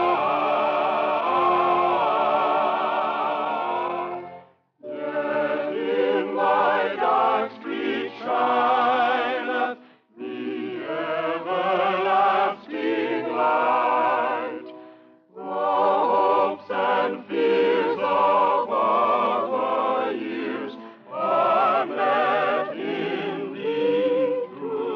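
Singing voices with vibrato in slow, sustained phrases, broken by short pauses about five, ten and fifteen seconds in. The recording is an old radio broadcast transcription with a dull top end.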